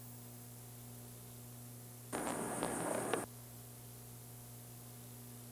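Steady low hum and hiss from VHS tape playback at a change between recordings, with a sudden noisy burst about a second long about two seconds in.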